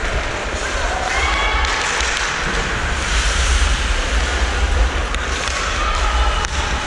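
Ice hockey play heard from a skating referee's helmet: skate blades scraping the ice over a steady low rumble, with a few sharp stick-and-puck clacks in the second half and distant voices.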